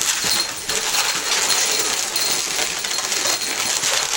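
Latex 260 modelling balloons rubbing and squeaking against each other as they are twisted together, a dense rubbery crackle with brief squeaks.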